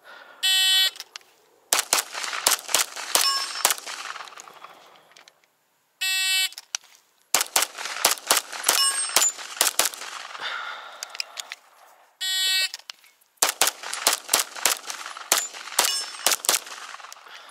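Three strings of rapid pistol fire from a Springfield Armory 1911 DS Prodigy. Each string is started by a shot timer's short electronic beep, and steel targets clang as they are hit.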